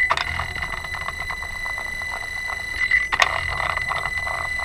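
Turbo test bench's buzzer sounding one steady high tone over a rough pulsing buzz, with a brief dip and a click about three seconds in. It signals that the automatic calibration of the Holset HE500VG actuator is complete.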